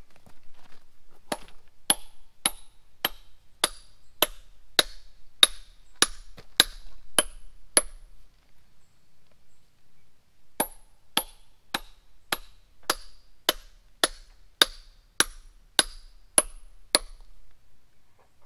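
Hand hammer striking steel wedges driven into a granite block to split it, each blow a sharp ringing metallic clink. The blows come in two steady runs of about a dozen, under two a second, with a pause of a few seconds between them.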